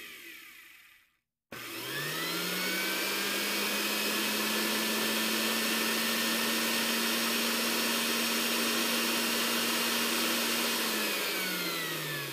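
Philips countertop blender grinding chilies and spices into a paste. Its motor winds down at the start and stops briefly. It spins back up about a second and a half in, runs steadily, and winds down again near the end.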